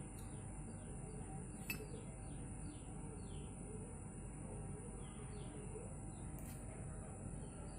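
A small bird chirping over and over in short, quick falling notes, faint against a low background hum and a thin steady high tone.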